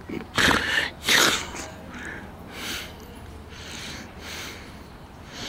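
Short, noisy breaths close to the microphone, about one a second. Two louder ones come near the start.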